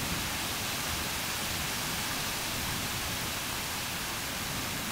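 Heavy rain pouring down in a windy summer thunderstorm, a steady, even hiss.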